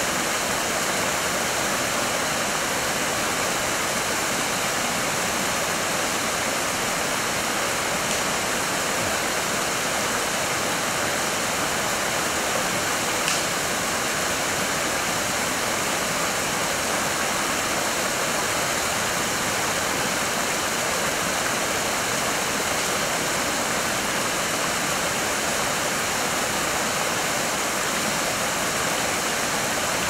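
Strong stream of water gushing out of the tunnel beneath an old stone water mill and splashing down over rocks: a steady, even rushing of falling water.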